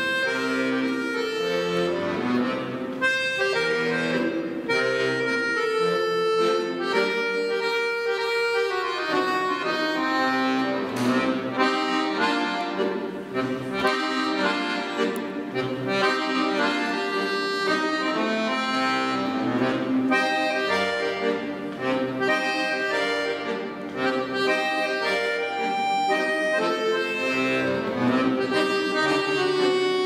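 Scandalli piano accordion played solo: a continuous tune of quickly changing notes on the right-hand keyboard over the bass-button accompaniment.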